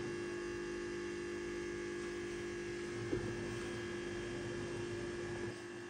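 Steady electrical hum made of several constant tones, with one faint tick about three seconds in.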